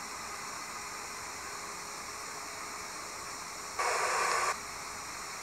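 Steady background hiss, with one short burst of louder hiss lasting under a second about four seconds in.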